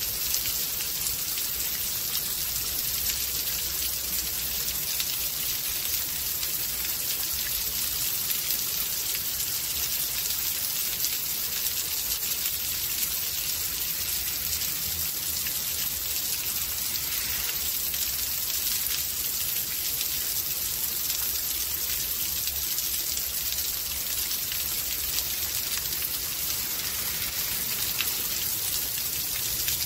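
Steady rain from a rainstorm: an even hiss with many small ticks of individual drops landing.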